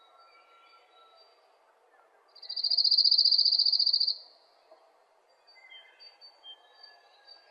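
A high, buzzing insect trill, a cricket-like call, starting a little over two seconds in and stopping abruptly after about two seconds. Faint high whistled notes come and go behind it.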